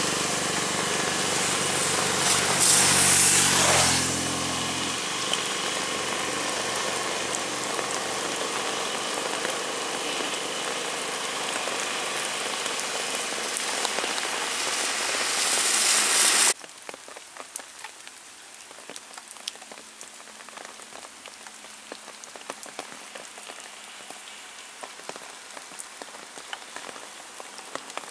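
Steady rain falling on a paved road, with a motorcycle engine passing close in the first four seconds. About sixteen seconds in, the sound drops suddenly to quieter rain with scattered drips.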